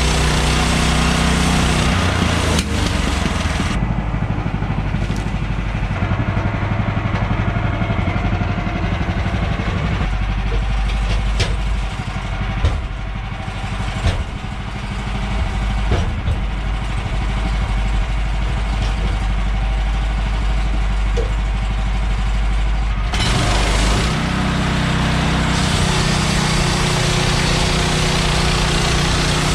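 Gasoline engine of a manual band sawmill running steadily, with a few sharp knocks in the middle.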